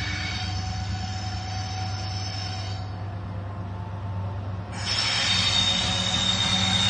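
Colas Rail Class 70 diesel locomotive approaching slowly with its engine running low, and its wheels squealing in high, thin tones on the curve. The squeal gets louder about five seconds in.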